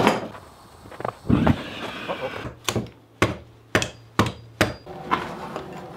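About a dozen sharp knocks and taps of tools and pieces of wood on a wooden workbench, the loudest right at the start and the rest coming singly or in quick pairs about half a second apart.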